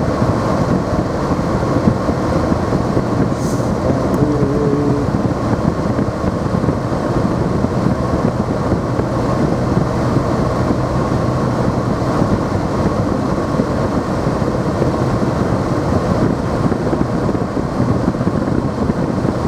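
Car driving, heard from inside the cabin: a steady rumble of engine and tyre noise on a snowy road. A short faint tone sounds briefly about four seconds in.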